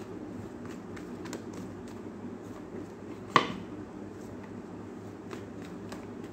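A deck of tarot cards being shuffled by hand, overhand, with light scattered card clicks and one sharp snap of cards about three and a half seconds in, over a steady low hum.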